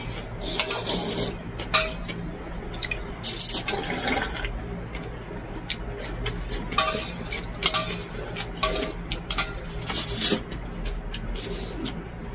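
Slurping cold noodles and broth in a string of short bursts, with metal chopsticks clicking against a stainless steel bowl.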